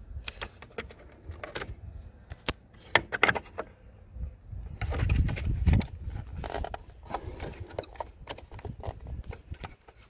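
Irregular clicks and taps of hard plastic side-mirror housing parts being handled and worked loose by hand, with a brief low rumble about five seconds in.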